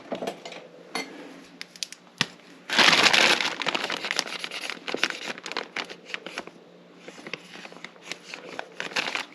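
Small clicks and taps of lock parts being handled and fitted on a workbench during rekeying, with a loud crinkling rustle about three seconds in.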